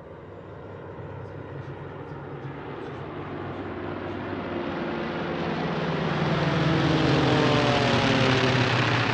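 Piston-engined warbirds flying by, the propeller-engine drone swelling steadily as they approach and its pitch dropping slightly in the last few seconds as they pass.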